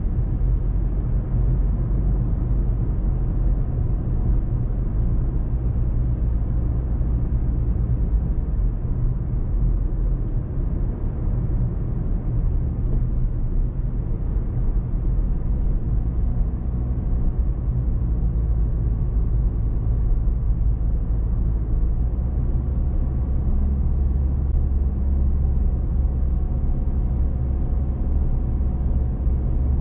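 A car driving along: a steady low rumble of engine and road noise, which grows deeper and stronger about two-thirds of the way through.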